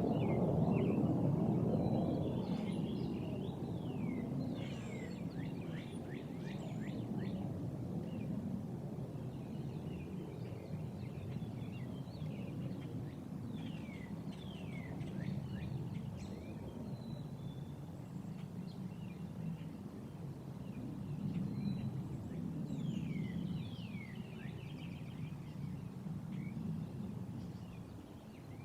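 Jet aircraft rumble, loudest at the start and fading over the first few seconds into a steadier low rumble that swells and eases. Birds call throughout in bursts of short, high, falling notes.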